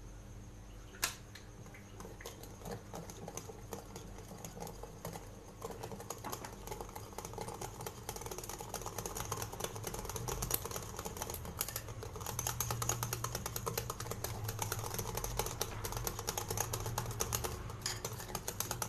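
A utensil beating a creamed butter, sugar and egg batter in a bowl, with a fast, steady run of clicks against the bowl that grows slightly louder. A single sharp tap comes about a second in.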